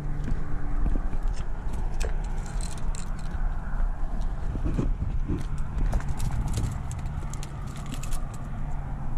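A small porkfish being reeled up and swung onto a concrete pier, with many scattered sharp clicks and a few knocks. Wind rumbles on the microphone throughout.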